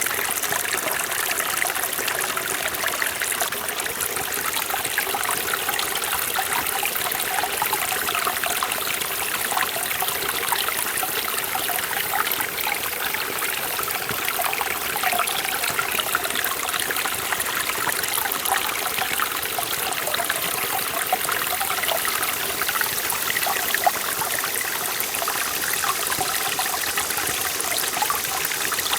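Mountain stream in a forest valley, water trickling and splashing over rocks in a steady, even babble.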